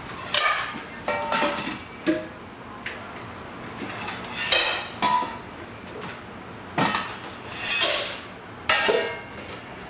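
Dishes and bowls clattering and clinking on a counter, in about eight separate bursts with brief ringing after some of them, as food is set out.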